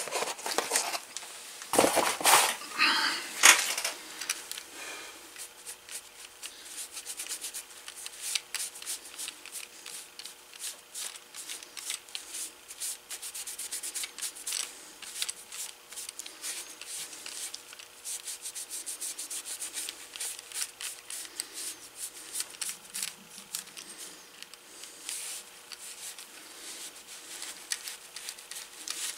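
Cloth rag rubbing conditioner into a dyed leather handle: a steady run of quick, scratchy rubbing strokes, with a few knocks about two to three seconds in as things are handled on the bench.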